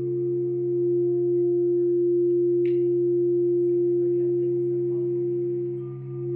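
Quartz crystal singing bowls ringing: several steady tones of different pitch held together and overlapping. The sound dips briefly near the end and then swells again, with a faint click about two and a half seconds in.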